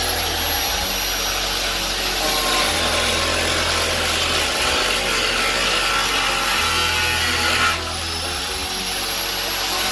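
High-speed power cutting tool running with a high whine, cutting into the car's sheet-metal body for the wide-body flares. It stops for a moment near the end and spins straight back up.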